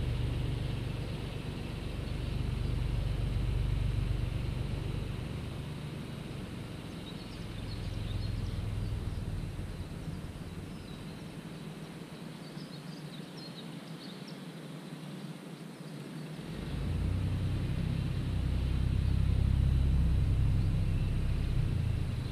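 Tractor engine running with a low, steady rumble. It fades away in the middle and comes back strongly near the end. Faint bird chirps are heard while it is quieter.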